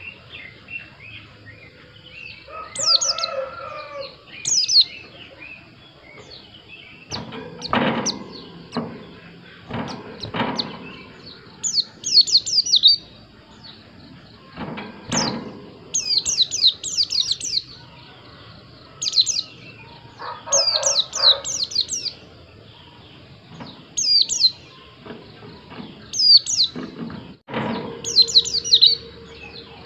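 White-eye (pleci) singing: quick bursts of high, thin, downward-sweeping chirps in clusters, repeated every second or two. A few dull knocks fall in between.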